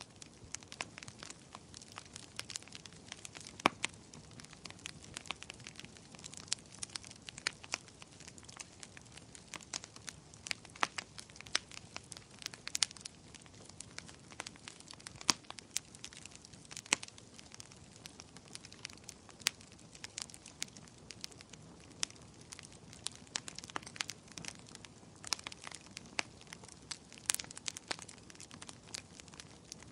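Wood fire burning, with irregular sharp crackles and pops over a faint steady hiss.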